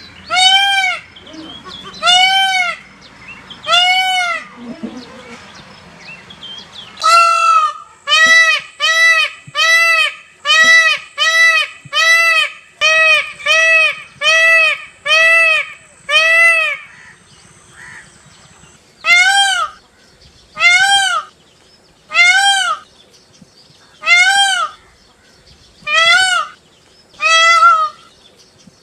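Peacock calling: a long series of loud, arched calls. A few widely spaced calls, then a fast run of about a dozen at roughly one a second, a short pause, then more calls about every second and a half.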